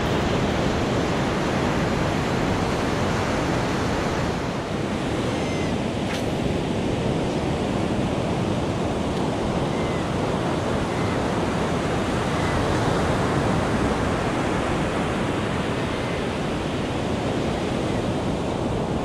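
Steady rush of ocean surf breaking on a sandy beach, mixed with wind buffeting the microphone.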